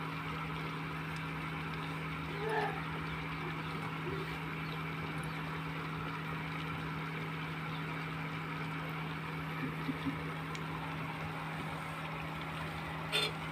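Fritters deep-frying in hot oil, a steady sizzle, over the steady low hum of an induction cooktop's fan. A single click near the end.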